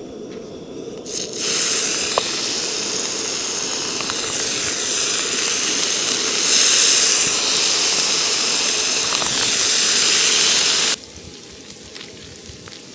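Loud steady hiss of breakfast cooking on a camp stove. It starts about a second and a half in and cuts off suddenly near the end.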